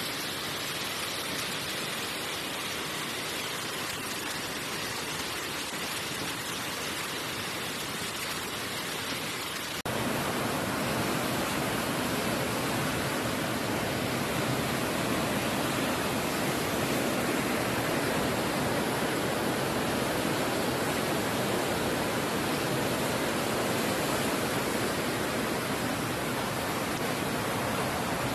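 Muddy floodwater from an overflowing river rushing through a town street in a steady, even rush of water. The rush steps up louder about ten seconds in.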